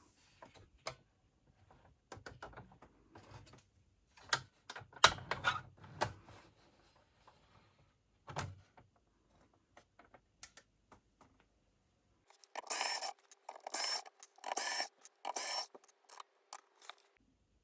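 Small mechanical clicks, knocks and scrapes as parts of a LaserDisc player are handled, loudest a few seconds in. Near the end come four short hissing bursts, about a second apart.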